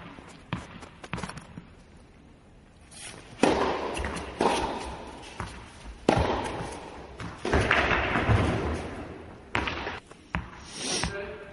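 Tennis ball being struck by a racket and bouncing on the court during a rally: a string of sharp hits about every one to two seconds, each trailing off in an echo.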